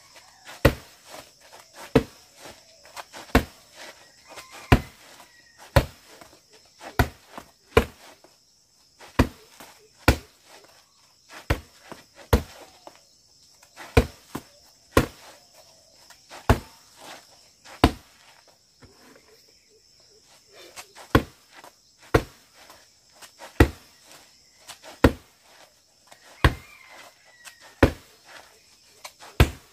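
Roundhouse kicks (mawashi geri) smacking a padded kick target strapped to a tree trunk. The strikes come as sharp slaps at an even pace, a little slower than one a second, about twenty-odd in a row.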